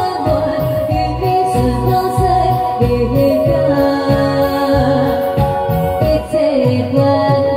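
A woman sings live into a microphone over an amplified backing track with a steady beat, holding long notes that glide between pitches.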